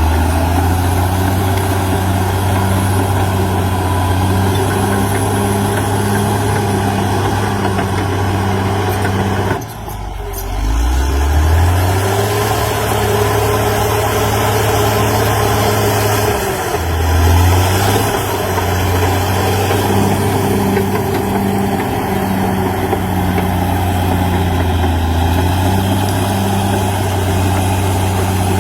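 CAT D6R XL bulldozer's diesel engine running steadily at working revs. About ten seconds in the sound dips briefly, then the engine revs back up, and it revs up sharply again a little past halfway.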